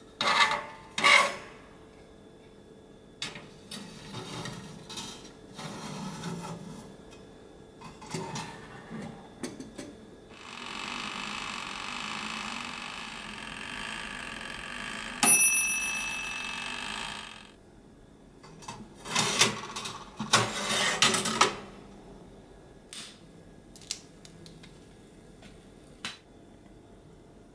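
Metal tray clattering as it slides into a small toaster oven. About halfway, the oven hums steadily for several seconds and its timer bell gives one ringing ding. A few seconds later comes more metal clattering.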